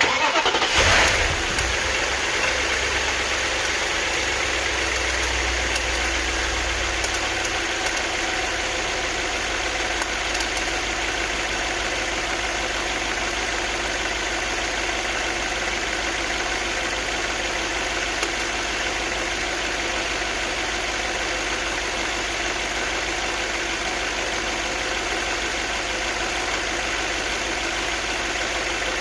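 Volkswagen Phaeton V8 engine starting up with a brief flare of revs, a deep rumble easing off about seven seconds in as it settles to a steady idle. The owner asks whether the engine's noise is timing-chain rattle.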